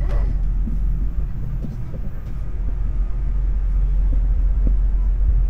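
Steady low rumble of a moving passenger train heard from inside the carriage, easing briefly about two seconds in.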